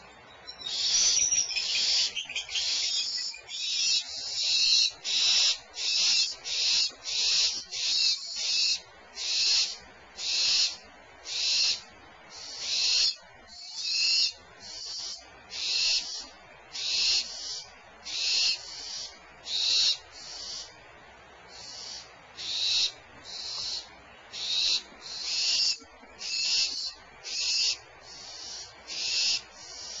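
Barn owls giving harsh hissing calls, one after another at a little over one a second. The calls come crowded together and loudest in the first few seconds, then settle into an even rhythm.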